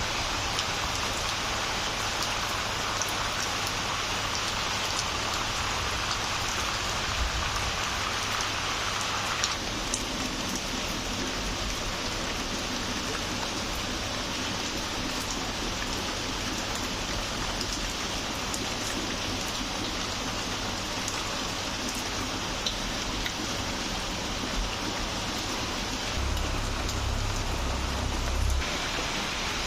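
Steady rain falling, with individual drops ticking on surfaces here and there. The sound of the rain changes about a third of the way in, and a low rumble comes in for a couple of seconds near the end.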